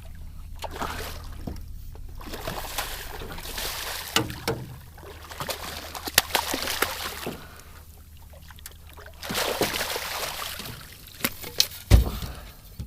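Water splashing and sloshing in bursts beside a boat as a hooked redfish thrashes at the side, with several sharp knocks on the hull and a heavy thump near the end.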